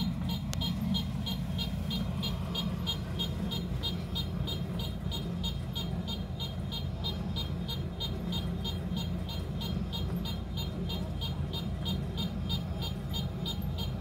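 Kubota rice combine harvester's diesel engine running steadily, with a rapid, evenly spaced high beeping going on throughout.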